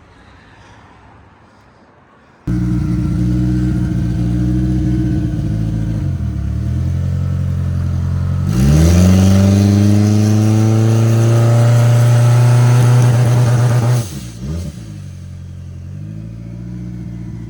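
Race car engine cuts in abruptly at a steady low rev, then revs up about halfway through and is held at a steady higher rev for about five seconds before being let off, falling back to a lower steady running note.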